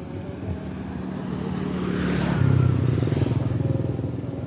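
A motorcycle passing close by on the path. Its engine grows louder, drops in pitch as it goes past about two and a half seconds in, then fades away.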